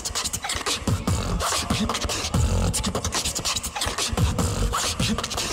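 Beatboxer performing a beat into a microphone: deep kick-drum sounds that slide down in pitch, with sharp snare clicks and hissing hi-hat strokes between them in a steady groove.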